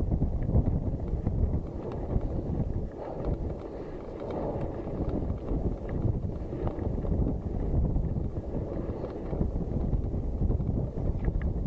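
Wind buffeting the microphone of a camera on a moving mountain bike, over the steady rumble of tyres rolling on a wet, rough dirt track, with small knocks from the bike.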